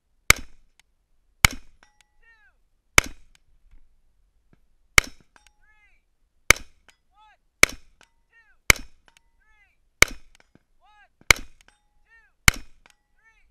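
AR-15 rifle firing ten single aimed shots, one every one to two seconds, each a sharp crack close to the microphone.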